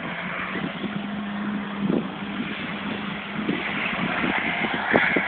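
Car engine running with steady road and wind noise, a faint low hum in the first half.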